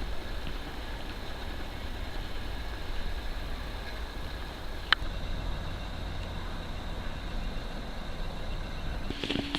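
Steady low rumble of outdoor background noise, with a single sharp click about five seconds in.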